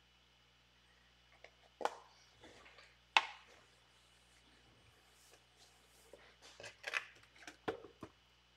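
Hands handling cardboard trading-card hobby boxes: scattered sharp clicks and short rustles, the loudest a single click about three seconds in, with a quick run of taps and rustles near the end.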